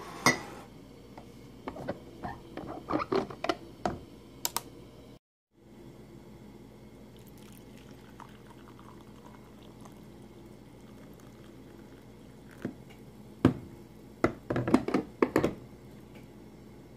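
Hot coffee poured in a steady stream from a glass coffee-maker carafe into a ceramic mug, between bursts of clinks and knocks from the mug and carafe being handled at the start and near the end.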